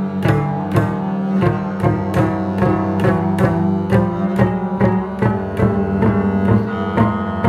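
Two double basses improvising: one bowed, holding a steady low tone, while the other's strings are played by hand in a quick even pulse of sharp attacks, about three a second.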